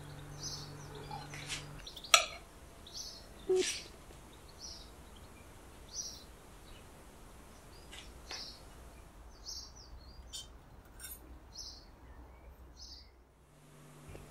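A small bird chirping in the background, short high chirps every second or so, with a few sharp clicks, the loudest about two seconds in.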